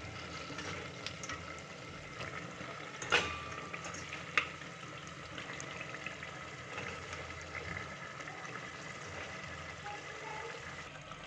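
Raw chicken pieces sizzling in hot oil and fried onion paste in a pressure cooker, a steady hiss. A spoon clinks against the metal pot twice, about three and four seconds in.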